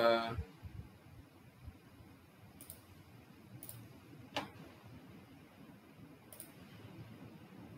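A few isolated computer mouse clicks with quiet room tone between them, the sharpest click about four and a half seconds in.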